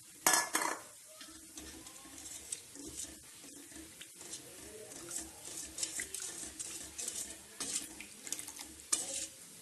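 Chana dal cooking water (kat) going into hot fried masala in a steel kadai: a short loud splashing rush just after the start, then a steel ladle stirring the liquid, sloshing and scraping against the pan in quick irregular strokes.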